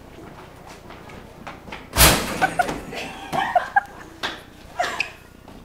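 One loud slam about two seconds in, ringing on in the echoing stairwell, followed by a few quieter knocks and scuffs.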